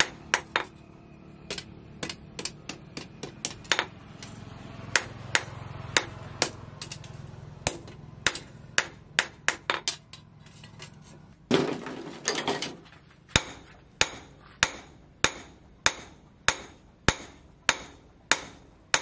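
Hand hammer striking a red-hot steel knife blade, forged from an old chainsaw, on a round steel post anvil; each blow is a sharp metallic clink. The strikes come unevenly at first, then settle into a steady beat of a little under two a second. A loud, noisy rush lasting about a second comes partway through.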